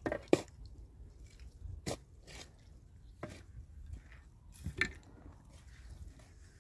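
Shovel blade digging into dry, stony soil: four short strikes and scrapes about a second and a half apart, the first the sharpest.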